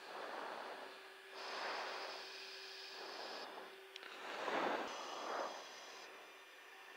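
Breathing into a fighter crew's oxygen-mask microphone over the open intercom of an F/A-18 chase jet: a run of soft hissing inhales and exhales, one about every second or so. Under it a faint steady hum stops with a click about four seconds in.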